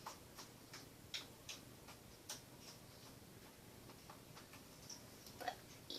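Faint, irregular little clicks and pops of slime being stretched and handled in the hands.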